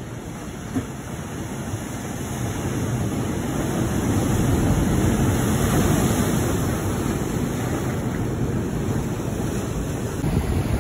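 Ocean surf breaking over a rocky reef shelf, swelling to its loudest about halfway through as a wave crashes and throws up spray, with wind rumbling on the microphone.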